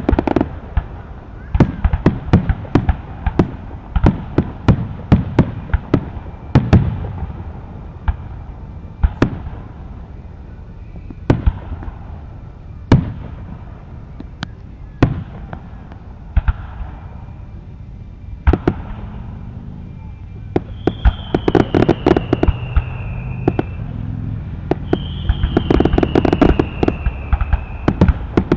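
Fireworks going off: a quick run of sharp bangs and pops. In the second half come two whistling fireworks, each whistle falling slightly in pitch, with dense crackling.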